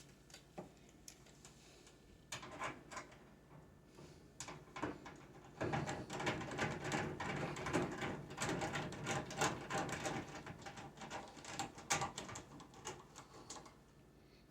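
Rapid clicking and rattling from hand work on a microwave oven's sheet-metal housing as its outer shell is refitted. A few scattered clicks come first, then a dense run of clicks from about halfway through.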